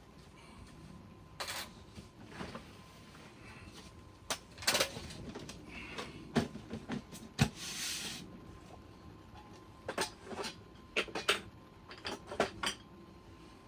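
Irregular knocks, clicks and scrapes of objects being handled, with a short hiss about eight seconds in.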